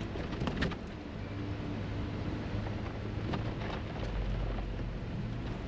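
Steady engine drone and road noise inside a moving intercity coach's cabin. A deeper low rumble joins about four seconds in.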